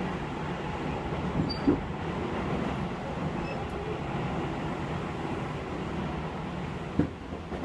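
Tobu 6050 series train running, heard from inside the passenger car: a steady rumble of wheels on rail, with two sharp knocks, one a little under two seconds in and another about seven seconds in.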